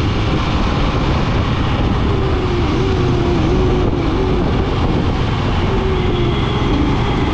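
Royal Enfield Scram 411 motorcycle on the move, its engine running under a steady, loud rush of wind noise.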